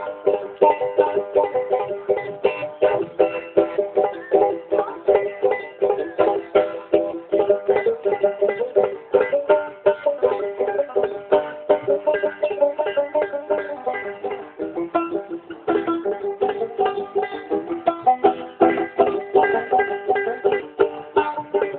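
Banjo played solo, a fast run of picked notes in a steady rhythm without a break.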